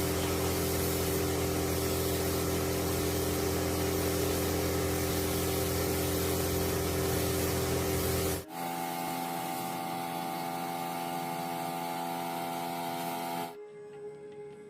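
Steady hissing spray over a steady machine hum, as from a compressed-air spray or blasting tool at work. The sound changes abruptly twice, about eight and a half seconds in and again near the end, where it drops much quieter.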